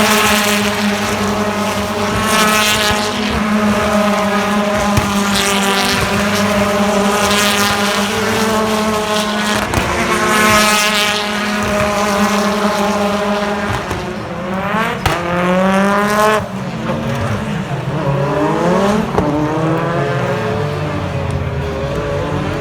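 BTCC touring car's 2.0-litre turbocharged four-cylinder engine at racing speed, its revs climbing and dropping back again and again with gear changes every two to three seconds.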